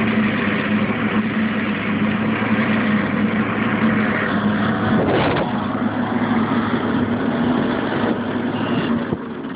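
Fisher & Paykel Smartload clothes dryer running, a loud steady mechanical noise over a constant hum, with a brief louder sweep about five seconds in. The noise comes from the drive belt's pulleys and belt tensioner, which are worn or faulty.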